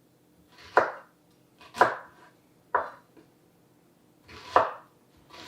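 Kitchen knife chopping an onion into large pieces: four separate cuts about a second apart.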